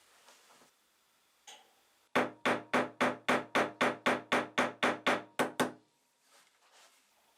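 A hammer striking metal in a quick, even series of about thirteen blows, roughly three and a half a second, each with a short ring.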